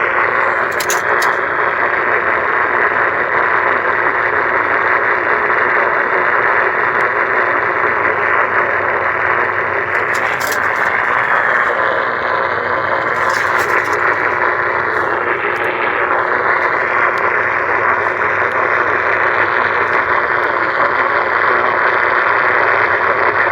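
Radio static: a steady, loud hiss from a radio receiver, with a few short crackles.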